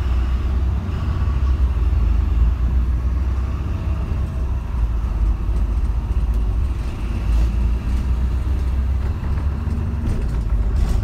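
Steady low rumble of a bus's engine and road noise, heard from on board as it drives through city traffic.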